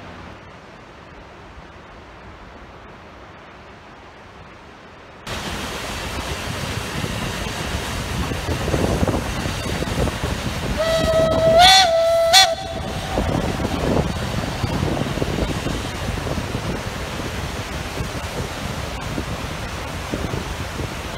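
Metre-gauge rack steam locomotive sounding one whistle blast of about a second and a half, its pitch stepping up briefly in the middle, over the steady rush of a waterfall and the rumble of the train crossing a stone viaduct. The first few seconds hold only a faint hiss.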